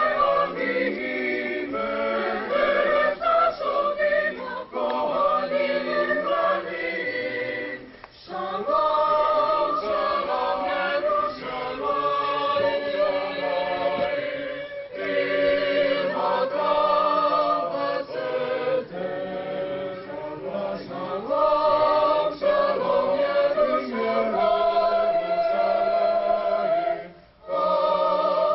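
A choir singing a slow song in held notes, breaking briefly between phrases about 8 s in and again near the end.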